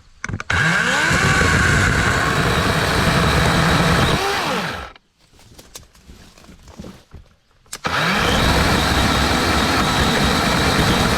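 DeWalt DCCS620 12-inch battery chainsaw run in two bursts of about four seconds each, cutting small branches. Each burst starts with a rising whine as the motor spins up and ends with a falling whine as it winds down, with a short quiet pause between them.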